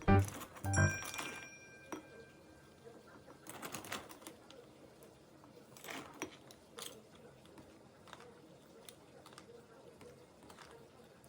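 A piano music phrase ends about a second in. Then come faint, scattered light clicks and taps, a few slightly louder ones near the middle.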